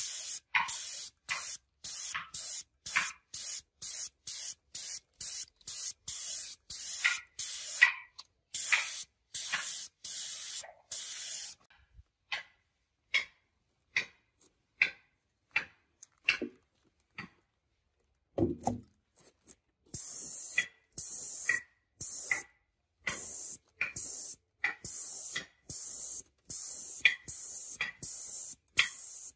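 Gravity-feed air spray gun spraying paint in short hissing bursts, about three every two seconds, with a lull of several seconds in the middle before the bursts resume.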